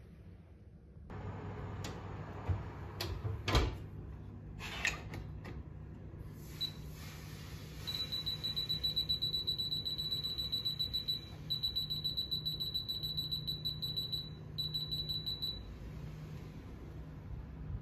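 Built-in oven's touch control beeping in a rapid run of short high beeps, with two brief pauses, as its timer is stepped up to 50 minutes. Before the beeps come a few sharp knocks and clunks over a low steady hum.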